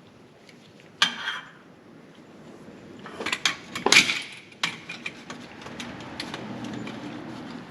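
Metal parts and tools clinking and knocking as they are handled, with one sharp knock about a second in and a cluster of clanks around the middle. A low steady hum comes up in the second half.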